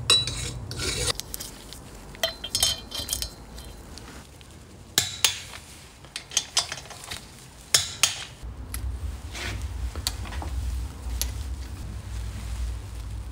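Scattered clicks, taps and clinks of small hard parts being handled and fitted by hand. A low hum comes in about eight seconds in.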